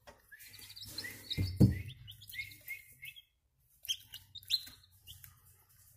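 Chicks peeping: many short, high, falling peeps in quick runs. A single loud thump comes about a second and a half in.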